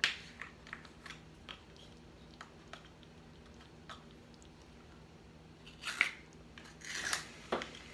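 A new, still-sealed plastic spice container being opened by hand: a sharp click, then scattered small ticks and scratches as the seal is picked at, and short crinkly bursts about six and seven seconds in.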